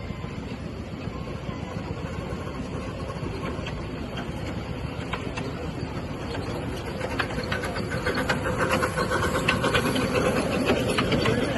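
Miniature steam engine running, with rapid clicking and rattling over a steady rumble that grows louder in the second half.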